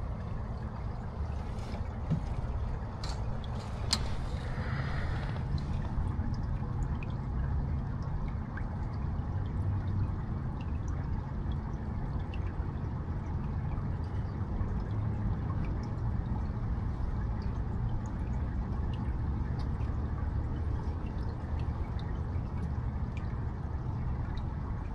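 Running water, a steady trickle with many small drips and splashes throughout.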